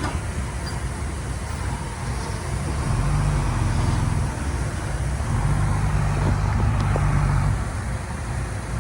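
Heavy diesel earthmoving engine running, with its low note swelling twice for a second or two as the load comes on and easing again in between.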